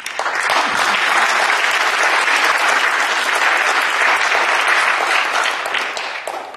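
Audience applauding, starting suddenly and easing off near the end.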